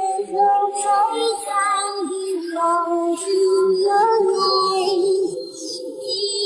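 Background music: a song with a high-pitched singing voice holding and gliding between notes.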